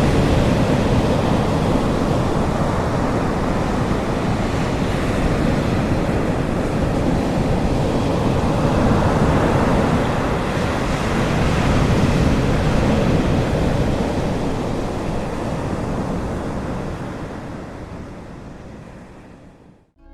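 Sea surf washing onto the shore in slow swells, with wind buffeting the microphone. The sound fades out steadily over the last few seconds.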